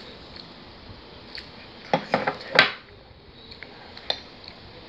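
White ceramic dishes clinking against each other and the table as a bowl is set down: a quick cluster of clatters about two seconds in, then one lighter click near the end.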